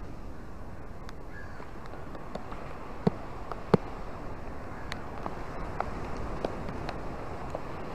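Small waves washing onto a sandy, rocky beach with a steady low rush, overlaid by scattered sharp drip-like taps of raindrops close by, two of them louder a little past the middle.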